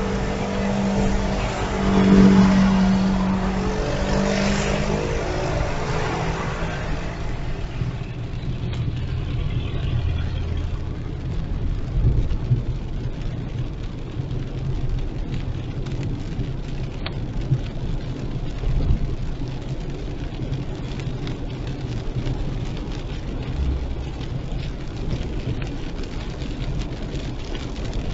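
A car driving on a rain-soaked road in heavy rain: a steady low rumble of engine and tyres on wet pavement under the hiss of rain. A pitched hum sounds for the first few seconds and fades out.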